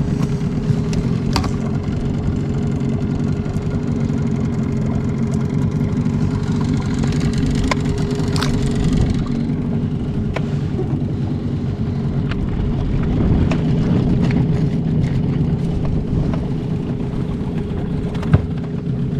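Boat motor running steadily at low trolling speed, with a few faint clicks and knocks over the drone.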